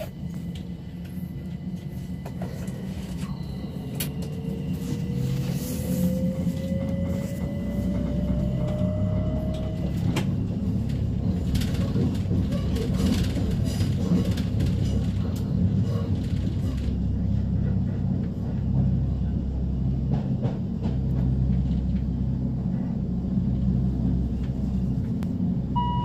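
Class 377/6 electric multiple unit's traction motors heard from inside the passenger saloon as the train accelerates: a heavy, uneven low rumble with a whine rising in pitch over the first ten seconds or so. It is an abnormal, broken-sounding motor noise, which the uploader suspects means something needs lubricating or tightening.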